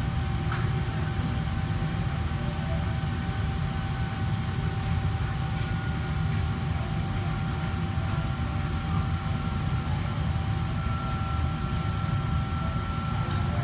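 Steady low rumble of commercial kitchen noise, with a faint steady whine over it and a few light clicks.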